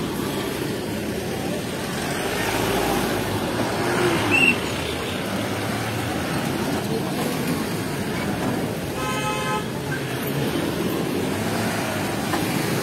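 A convoy of cars and jeeps driving slowly past, with a car horn sounding once for about half a second around nine seconds in and a short high beep about four seconds in.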